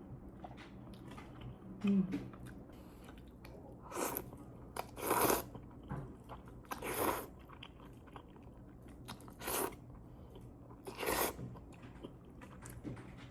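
A person eating jjampong noodle soup close to the microphone: chewing and mouth noises, with about five short louder bursts a second or two apart and a brief hummed 'mm' about two seconds in.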